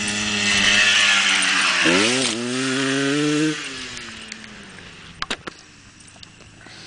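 Enduro dirt bike approaching at speed and passing close by. The engine note grows louder, dips and climbs sharply in pitch about two seconds in, then drops in pitch and fades as the bike rides away. A few sharp clicks follow near the end.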